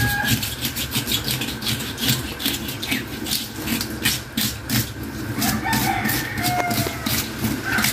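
Homemade fish scaler, soft-drink bottle caps screwed onto a wooden handle, scraped quickly and repeatedly along a large fish's side, several rasping strokes a second, stripping off the scales. A rooster crows in the background about two-thirds of the way through.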